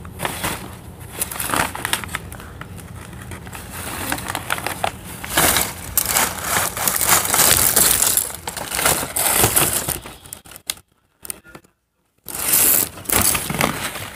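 Loud, crackly rustling and crinkling right against the phone's microphone, as it moves about against bedding and clothing. The sound cuts out almost completely for a moment about eleven seconds in.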